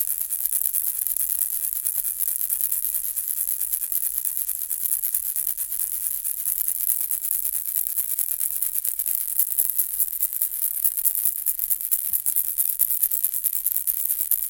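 Baby ball rattle being shaken steadily: a dense, fast, high-pitched rattling with no break.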